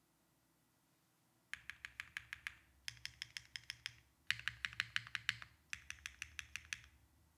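Typing on a foamless, gasket-mounted Neo65 Cu mechanical keyboard with Keygeek Jasmine V2 switches, a carbon fiber plate and GMK Oblivion keycaps. The keystrokes come fast and evenly, about seven a second, in four bursts of about a second each with short pauses between, starting about a second and a half in.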